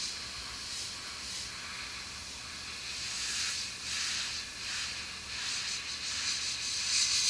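Gravity-feed airbrush spraying paint: an airy hiss that swells and fades in several short bursts as the trigger is worked.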